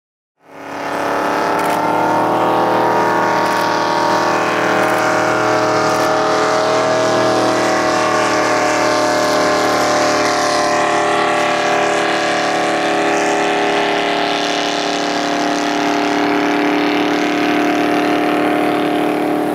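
Supercharged racing hydroplane engine running at high, steady revs, coming in about half a second in. Its pitch eases down slightly over the first few seconds, then holds nearly level.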